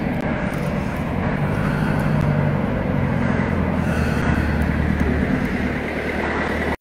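Street noise dominated by a motor vehicle engine's low rumble, which grows louder through the middle and eases off near the end.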